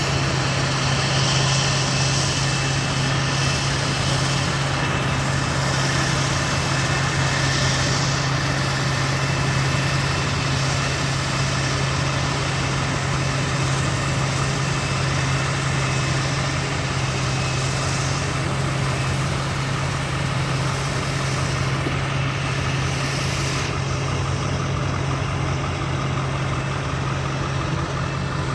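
Heavy farm machinery engine running at a steady, constant speed: a continuous low hum under a dense wash of mechanical noise, with no change in pitch or level.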